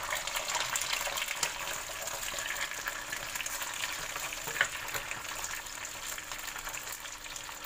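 Whole red chilies, tomatoes, shallots and garlic sizzling and crackling in hot oil in a frying pan as they are stirred with a wooden spatula, with small pops of spattering oil and one sharper pop about four and a half seconds in. The vegetables are being fried as the first stage of a sambal paste.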